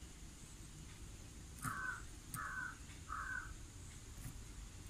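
A crow cawing three times in quick succession, each call short and evenly spaced.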